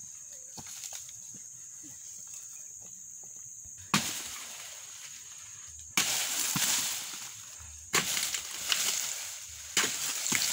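A pole-mounted harvesting blade chopping into oil palm fronds and fruit-bunch stalks: four sharp strikes about two seconds apart, each followed by a second or so of rustling.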